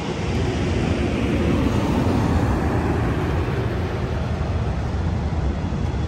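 Amtrak Capitol Corridor bilevel passenger cars rolling slowly past, a steady low rumble of wheels on rails, with wind buffeting the microphone.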